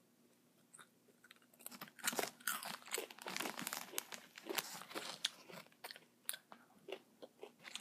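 A person chewing crunchy chips close to the microphone: a dense, irregular run of crunches starting about two seconds in.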